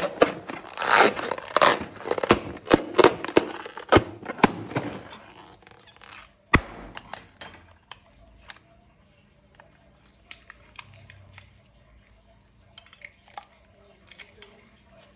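Balloon slime being handled and squished, with crackling, crinkling and snapping clicks for about five seconds. A single sharp click follows, then only a few faint clicks.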